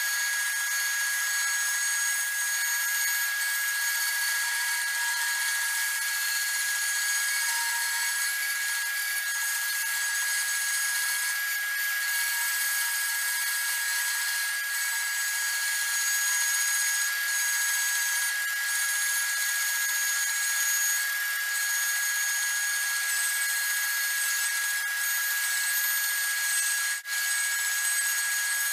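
A 14-inch bandsaw running and cutting 5/4 maple: a steady whine with the blade's rasp through the wood, sped up. A brief dropout about a second before the end.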